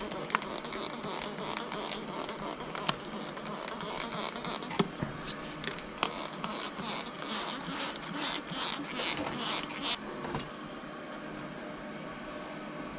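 Hand trigger spray bottle squeezed again and again, a quick run of short spritzing hisses with a few sharper clicks, stopping about ten seconds in. After that, only a steady, duller background noise.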